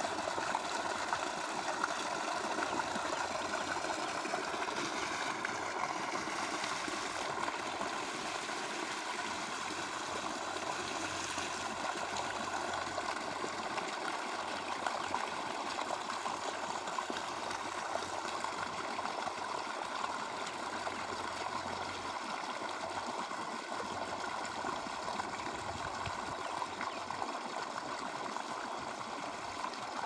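Pumped well water gushing from a hose pipe into a concrete cattle trough as it fills: a steady, splashing rush.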